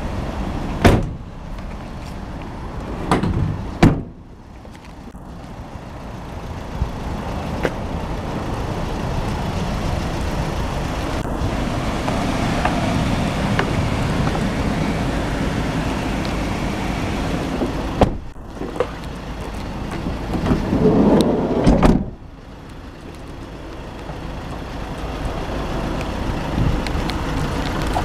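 Ford Transit Custom van doors being handled: a few sharp knocks and thuds near the start and again later, and a louder rumbling stretch that ends suddenly with the door shutting, over a steady noisy outdoor background.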